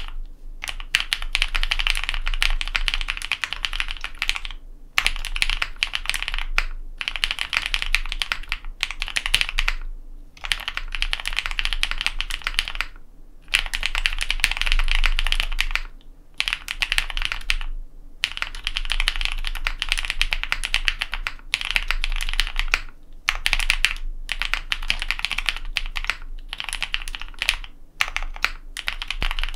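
Typing on a custom Matrix ME SE mechanical keyboard with lubed linear Cherry MX Black switches (Kailh Red stems) in an aluminium plate, under GMK keycaps. The keystrokes come in quick runs, broken by short pauses every one to three seconds.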